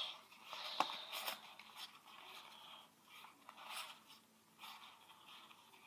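Pokémon trading cards being leafed through by hand, a faint rustling with light clicks as the cards slide and tap against each other.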